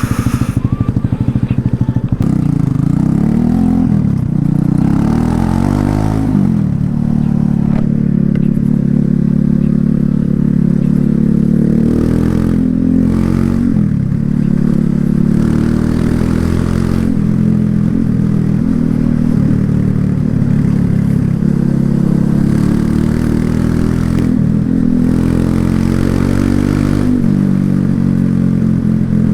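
Exhaust of a Loncin LX250-12C, a 250 cc single-cylinder motorcycle, under way. The engine note rises and falls several times in the first few seconds as the throttle opens and closes, then settles into a steady cruise with brief dips.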